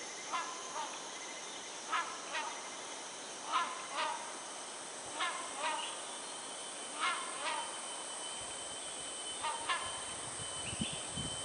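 Hornbill calling: a pair of harsh honking notes, repeated six times about every one and a half seconds.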